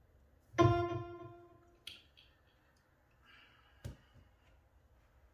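A single plucked-sounding musical note rings out about half a second in and fades away over about a second. Later come a short click, a brief rustle and another sharp click.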